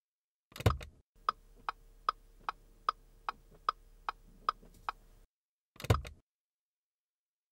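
Sound effect of a car's turn-signal flasher ticking, about ten even ticks at roughly two and a half a second, set between a louder switch click about half a second in and another near six seconds.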